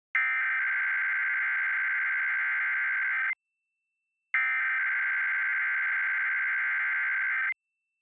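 Emergency Alert System SAME header: bursts of raspy, warbling digital data tone that encode the alert message for a Required Weekly Test. Two bursts of about three seconds each, with a second of silence between them.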